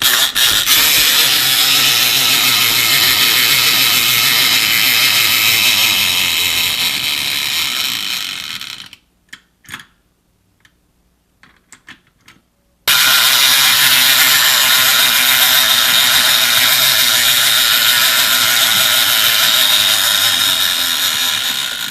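Clockwork wind-up motor of a pocket fishing game toy whirring as its pond turns. It runs down and stops about nine seconds in. After a few clicks it starts again abruptly and whirs until it fades near the end.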